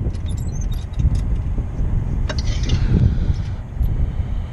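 Scattered small metallic clicks and clinks as an EGR flex pipe and its band clamp are worked into place by hand, over a steady low rumble.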